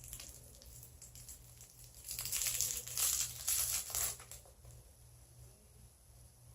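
Candy wrapper crinkling and tearing as a whistle pop is unwrapped, in a burst of rustling crackles from about two seconds in to four and a half.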